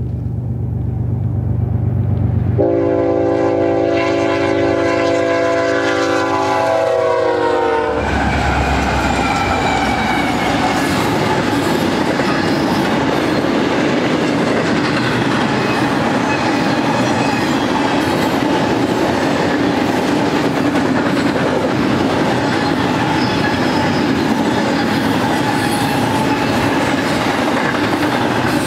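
BNSF diesel freight locomotive approaching with its engine rumbling; a few seconds in it sounds its multi-chime air horn in one long blast whose pitch drops as the locomotive passes. Then the double-stack intermodal cars roll by, their wheels clattering steadily over the rail.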